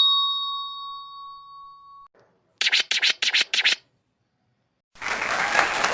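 A sequence of stock sound effects. A bell-like ding rings out and fades over about two seconds. A quick run of about six scratchy strokes follows, like a DJ record scratch. Near the end, applause begins.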